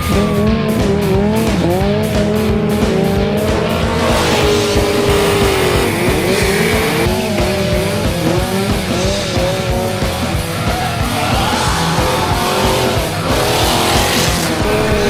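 Car engine revving up and down hard with tyres squealing during stunt driving, under loud music.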